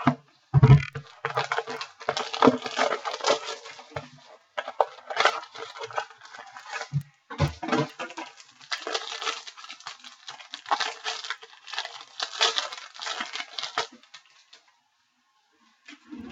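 A trading card pack being torn open and handled, its wrapper crinkling and crackling in several stretches, with a couple of soft thumps. It stops about two seconds before the end.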